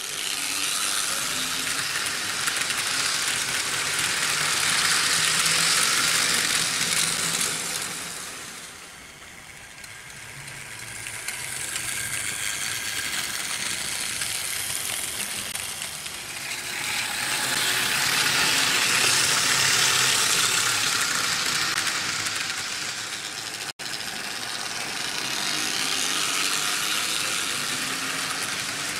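Vintage Märklin H0 model trains running on tinplate M-track: wheels clattering over the metal rails with the AC motors whirring and humming underneath. It swells and fades as locomotives pass close by.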